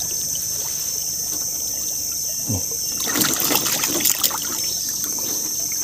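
Shallow swamp water sloshing and splashing around a wire-mesh fish trap as it is prodded with a stick and shifted, busiest about three to four seconds in, over a steady high insect buzz.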